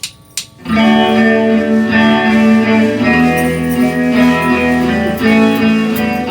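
A few sharp taps, then a band's guitars come in loudly less than a second in, playing the opening of a rock song with sustained chords and notes.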